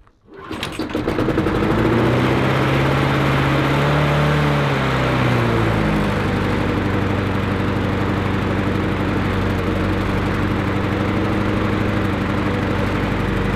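Briggs & Stratton engine on a Mountfield self-propelled petrol lawnmower, pull-started after priming and catching on the first pull. Its speed rises and falls for a few seconds, then settles into a steady run.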